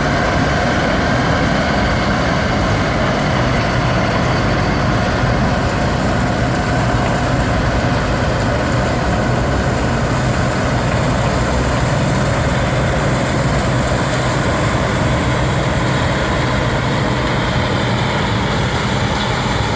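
Claas Dominator 86 combine harvester running steadily while harvesting rapeseed: an even engine drone under the whirr of the threshing machinery, with no change in pace.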